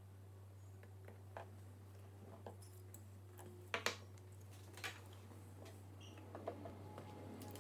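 Faint handling noise: scattered light clicks and taps, with two sharper clicks about four seconds in and another a second later, over a steady low hum.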